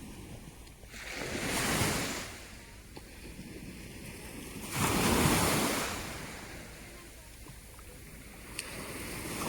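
Small sea waves washing onto a sand beach, swelling and fading about every three to four seconds: two surges about 2 and 5 seconds in, and a third building near the end.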